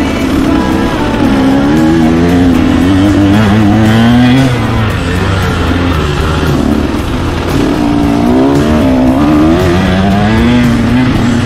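Motocross dirt bike engine heard from on the bike, revving up and dropping back again and again as the rider accelerates and shifts around the track.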